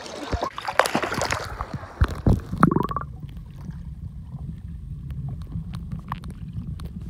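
Splashing water as the camera goes under the lake surface, with a short bubbly gurgle about two and a half seconds in. After that, muffled underwater sound: a steady low rumble with faint clicks.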